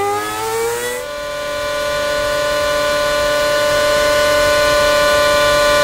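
Formula 1 car's 2.4-litre V8 engine heard onboard over the hiss of rain spray. Its note rises as the car accelerates, then about a second in it cuts to another car's engine holding one steady high pitch.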